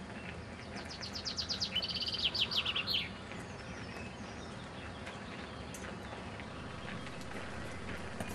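A songbird sings one rapid trill of about twenty short high notes lasting about two seconds, over a steady outdoor background hiss.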